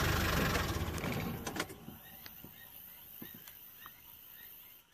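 Safari vehicle engine running, then dying away within the first two seconds. After that it is quiet, apart from a faint high chirp repeating about twice a second and a few soft knocks.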